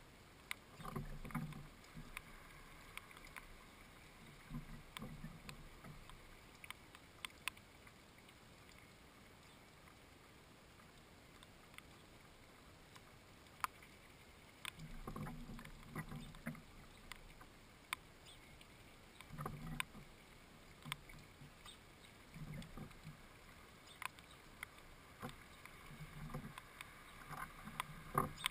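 A bird moving and pecking inside a wooden feeder: sharp taps and clicks, with clusters of dull knocks and rustles every few seconds as it shifts on the wooden tray and at the hanging fat ball. No calls or song.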